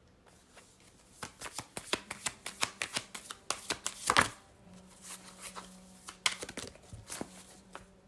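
A deck of tarot cards being shuffled by hand: a quick run of card snaps and flicks from about a second in, then slower, scattered card taps.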